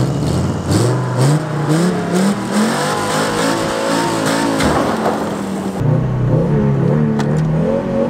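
1991 Audi 80 Quattro's engine running and revving, its pitch climbing in steps over the first couple of seconds. It drops back about six seconds in and climbs again near the end.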